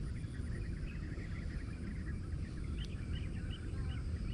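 Outdoor ambience: many short, high chirps from small wild animals over a steady low rumble.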